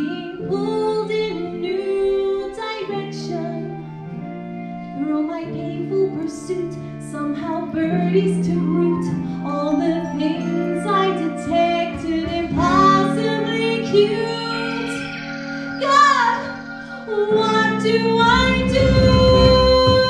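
A woman singing a song into a microphone over musical accompaniment, with held notes and pitch glides. Near the end the accompaniment gets louder and fuller.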